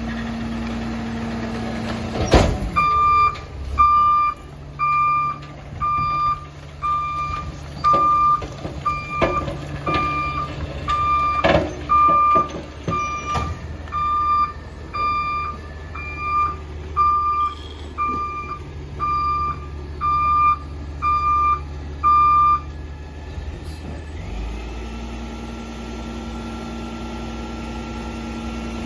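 Peterbilt rear-loader garbage truck backing up: after a loud burst of air from its air brakes a couple of seconds in, its reversing alarm beeps about once a second for some twenty seconds over the running diesel engine. The beeping stops near the end, leaving the engine running.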